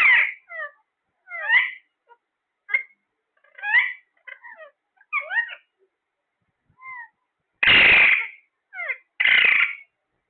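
Pet parrot calling in a string of short, squeaky chirps that bend in pitch, with gaps between them. Near the end come two louder, longer, harsh squawks.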